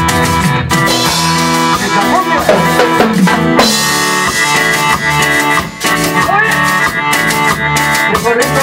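Live cumbia band playing loudly: a drum kit keeps a steady dance beat under sustained electronic keyboard chords and electric guitar.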